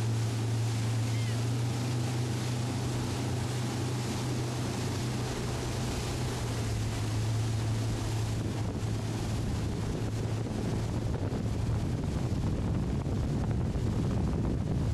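Pontoon boat's motor running steadily at speed with a low hum, over water rushing in the wake, while wind buffets the microphone, more heavily in the second half.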